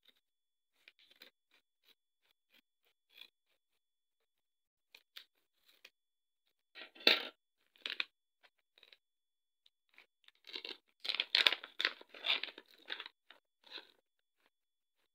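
Scissors snipping through the top of a plastic stand-up pouch in a few small clicks, then the pouch crinkling in bursts as it is pulled open, loudest about seven seconds in and in a dense run from about ten to fourteen seconds.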